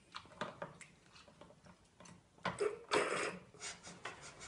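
Mechanism of a homemade caipirinha machine clicking and knocking. There are a few sharp clicks at first, a louder rattling clatter about three seconds in, then more clicks.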